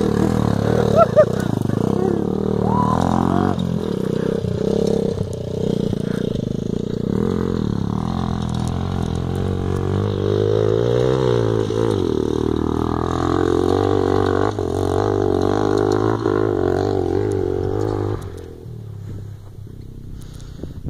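Dirt bike engine running with changing revs, its pitch rising and falling, until it drops away sharply about 18 seconds in.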